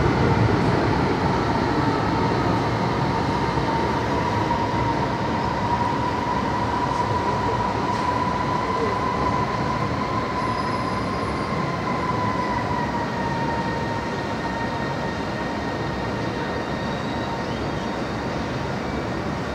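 Beijing Subway Line 7 train running, heard from inside the car: a steady rumble with a high whine that rises slightly in pitch and then drops about two-thirds of the way through, the whole sound slowly getting quieter.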